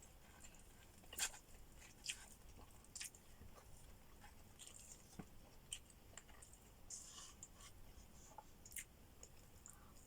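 A person chewing food close to the microphone: faint, scattered wet clicks and crackles of the mouth, the sharpest about a second in.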